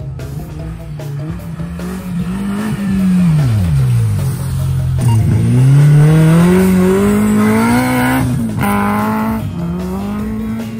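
Suzuki Jimny engine revving hard as it launches up a snow course. The pitch dips, then climbs steadily for about three seconds. It breaks off about eight seconds in and picks up again from lower pitch.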